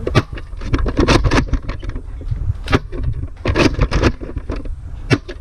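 Handling and movement noise on a handheld camera's microphone: irregular knocks and rustles over a low wind rumble.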